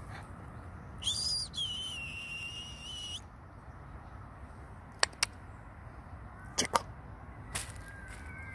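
A high whistle that drops in pitch and then holds one steady note for about two seconds. It is followed by several sharp clicks: two quick pairs and then a single one.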